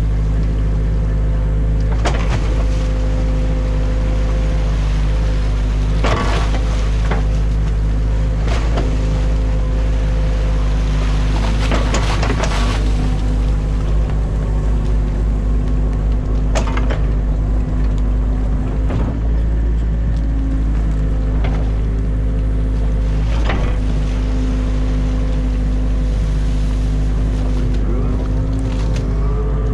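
Excavator's diesel engine running steadily with a hydraulic hum, heard inside the cab, with several short knocks and clanks as the bucket works through the mud and sticks of a beaver dam.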